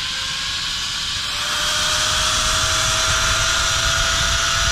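Zipline trolley pulleys running along a steel cable: a steady whine that rises slowly in pitch, with wind rushing over the microphone growing louder about two seconds in.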